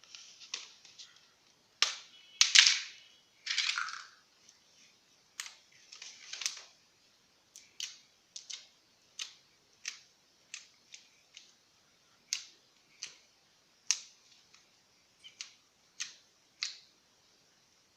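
Slime being squished and poked: two longer wet squelches in the first few seconds, then a run of short, sharp pops and clicks, about one a second.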